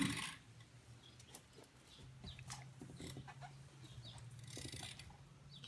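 Rustling of clothing and small knocks and squeaks as a person is moved from a wheelchair onto a car seat, with a sharp bump right at the start. A faint low hum sets in about two seconds in and holds steady to near the end.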